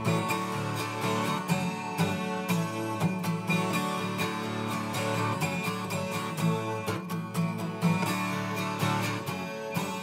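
Twelve-string acoustic guitar strummed in a steady rhythm, with no singing.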